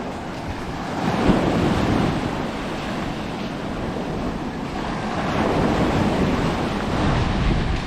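Sea surf washing onto a sandy beach, swelling and easing as waves come in, with wind buffeting the microphone.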